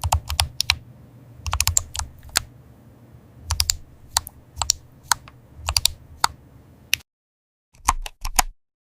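Typing on a computer keyboard: flurries of sharp key clicks, broken by a short silence about seven seconds in before a few more keystrokes.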